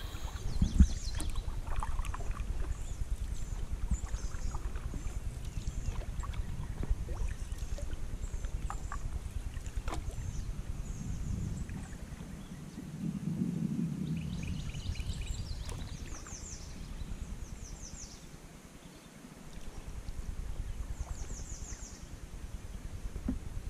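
Canoe moving on river water, with a steady low rumble of water and paddling close to the microphone and small knocks now and then. Birds sing short repeated trills in the background.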